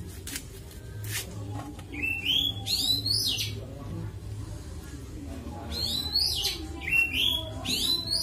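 A bird calling: short, high chirps that sweep up and down, in quick groups of two or three, coming several times with a pause of a couple of seconds in the middle.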